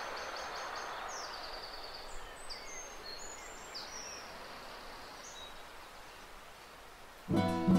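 Birds chirping in quick series of short high notes over a soft outdoor hiss that slowly fades; an acoustic guitar strum starts near the end.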